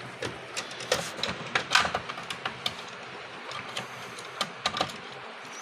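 Irregular small clicks and taps of a screwdriver working screws out of a label printer's plastic housing.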